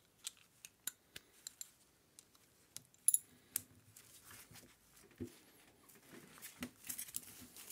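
Light metallic clicks and clinks of hand wrenches being picked up and set on the head bolts of a refrigerator compressor, with a denser run of clicking near the end as a ratchet wrench starts to turn.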